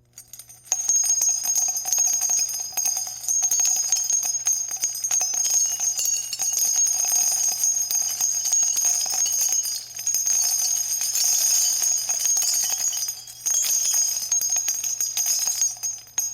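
Small jingle bells shaken continuously, a dense rapid jingling with a bright ringing, easing off briefly twice.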